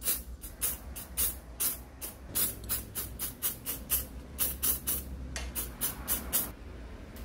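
Quick successive squirts from a spray bottle of cleaning fluid onto an angle grinder's armature windings, about three to four short hisses a second, stopping near the end.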